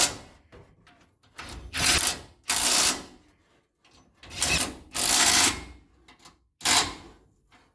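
Power tool run in about six short bursts, each under a second, spinning in the tow bar's mounting bolts.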